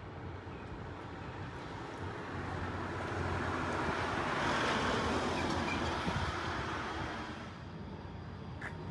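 A vehicle passing by on the road, its noise swelling up over a few seconds and fading away again.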